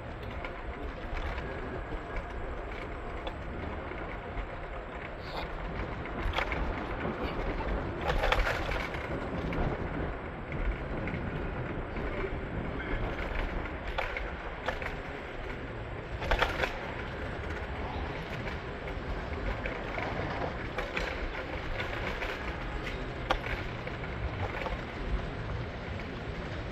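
Steady rumble of a city street ride with a few sharp knocks and rattles, the loudest about eight seconds in and again about sixteen seconds in.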